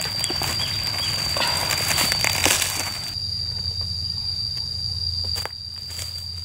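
Dry clods of red clay soil crumbling and scraping as a gloved hand pulls them loose, over a steady high-pitched insect call. The crumbling stops suddenly about three seconds in, leaving the insect call with a few soft ticks and knocks as clods are set down.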